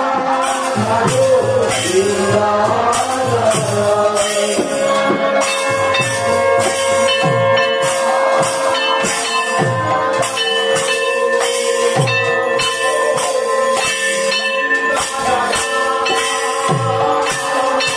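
Devotional kirtan: a group of men singing in chorus to a khol, the Bengali clay barrel drum, whose bass strokes drop in pitch after each hit, while kartal hand cymbals clash in a steady rhythm. About five seconds in the singing gives way to long held notes over the drum and cymbals.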